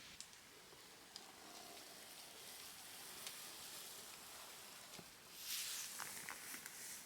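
Faint outdoor hush on a mountain trail: a steady soft hiss with a few light ticks. About five seconds in a hiker's footsteps scuff briefly on the path.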